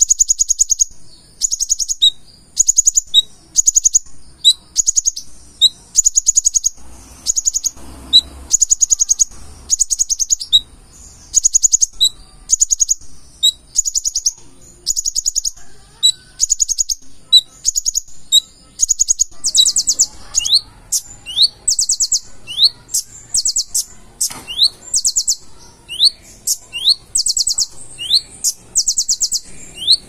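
Purple-throated sunbird singing a fast, repeated high-pitched song: short rapid trills about once a second, each with a quick rising whistle note between them. The rising notes become sharper and more prominent in the second half.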